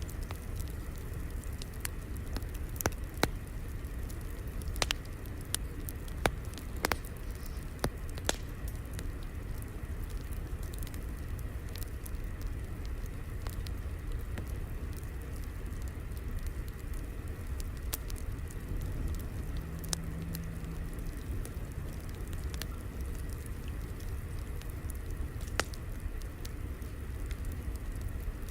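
Crackling fire: a steady low rumble with scattered sharp pops, most of them in the first eight seconds or so and one more near the end.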